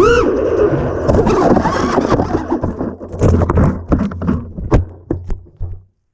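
FPV quadcopter motors whining and swinging in pitch, giving way from about two and a half seconds in to an irregular run of sharp knocks and thumps over a low hum: the drone crashing and tumbling. The sound cuts off just before the end.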